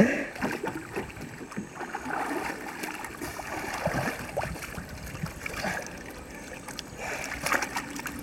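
River water sloshing and trickling around a kayak as a swimmer moves in the water and climbs out onto the bank, with a few light knocks scattered through it.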